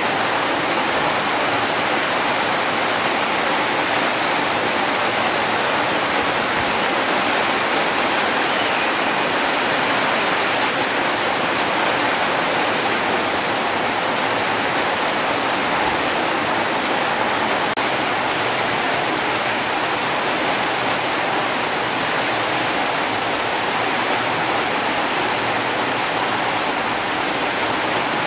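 Rain pouring down steadily, an even rushing hiss that does not let up.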